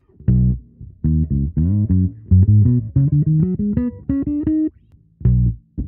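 P-style electric bass played fingerstyle and recorded direct through an amp simulator, with its tone knob turned all the way down. It plays a line of plucked notes with short gaps near the start and the end, climbing to higher notes a little past the middle.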